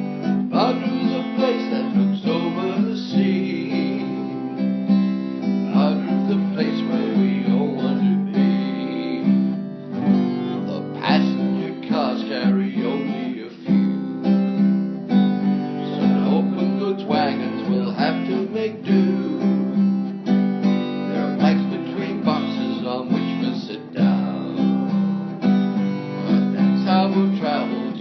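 Instrumental music: acoustic guitar strumming chords in a steady rhythm, with no voice.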